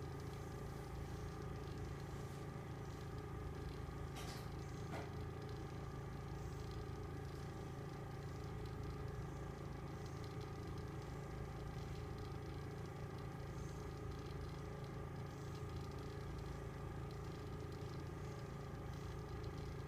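Steady low room hum with several steady tones, and two faint clicks about four and five seconds in.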